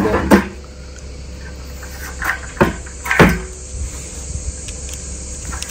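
A few hollow knocks and scrapes as a long aluminium straightedge is shifted against the lid of a buried plastic barrel, one about a third of a second in and a cluster around three seconds in. Insects trill steadily in the background.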